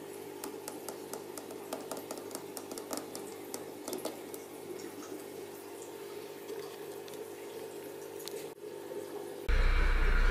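Aquarium air bubbles from a sponge filter's air line rising and popping at the surface in quick, irregular ticks over a steady low hum. About nine and a half seconds in it cuts abruptly to a much louder, different sound.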